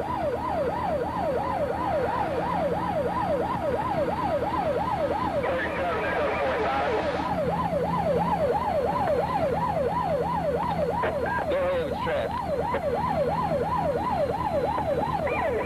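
Police car siren in a fast yelp, sweeping up and down about three times a second without a break, over the steady hum of the pursuing car.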